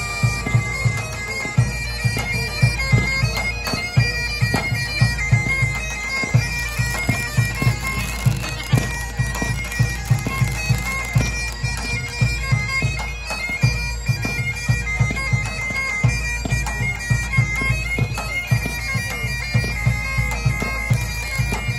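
Bagpipe music, a melody played over a steady drone, accompanies a fireworks display, with frequent sharp bangs and pops from the fireworks throughout.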